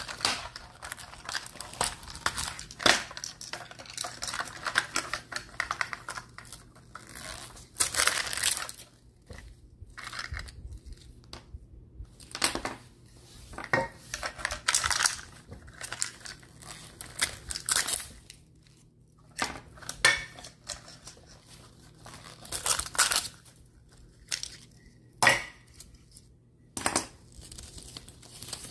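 Gloved hands unboxing a plastic surprise capsule: foil and plastic wrappers crinkling and tearing, with sharp clicks and taps of the hard plastic capsule halves and small toy pieces being handled and set down.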